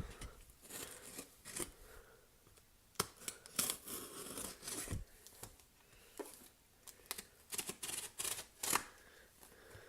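A cardboard shipping box being cut and torn open: irregular snips, scrapes and tearing of packing tape and cardboard, with a louder click about 3 seconds in and a dull thump about 5 seconds in.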